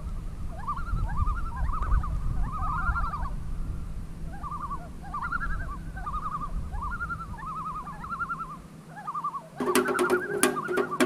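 A bird calling over and over in short, arched chirps above a low rumble. About a second and a half before the end, music comes in with sharp, regular strokes.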